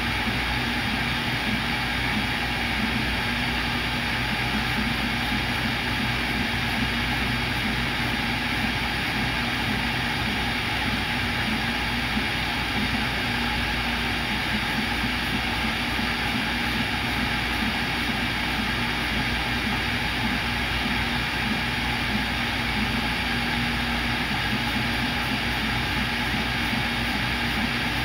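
CNC router spindle running at high speed while drilling holes in a copper-clad circuit board, along with the dust extraction on its head, a steady whine over a constant rush of noise.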